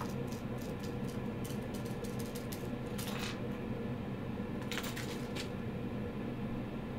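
Small eight-pin SMD chips tipped out of their tube and clattering onto a circuit board: a run of light ticks, then two short rattling spills about three and five seconds in, over a steady low hum.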